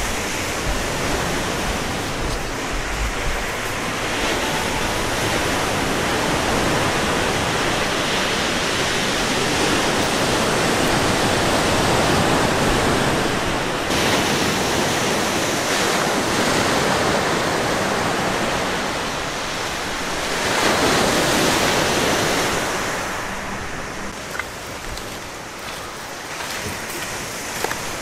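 Lake Superior surf breaking on the shore: a steady rush of waves that swells about a third of the way in and again about three quarters through, then eases.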